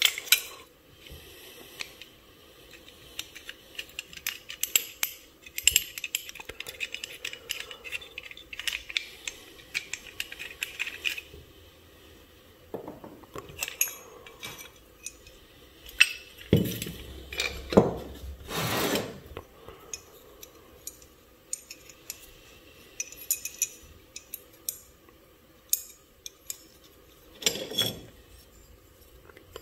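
Metal parts of a rusty block plane clicking, clinking and scraping against each other as it is handled and taken apart by hand: the lever cap and blade come off the cast-iron body. A dense run of light rattling and scraping for several seconds, then a few louder knocks and scrapes past the middle.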